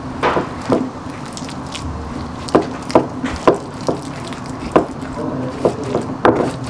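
Stone pestle grinding and knocking in a stone mortar (Indonesian cobek and ulekan), crushing fermented soybean paste (tauco) smooth. It gives irregular knocks and scrapes of stone on stone, about two a second.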